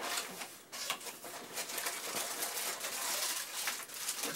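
Paper and cardboard rustling and crinkling as items are rummaged out of a cardboard subscription box and a paper map is rolled up: a dense run of small scratchy crackles.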